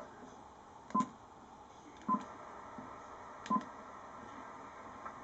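Three button presses on a Ten Tec Paragon transceiver's keypad, each a click with a short beep, as a frequency is keyed in by hand, over faint receiver hiss.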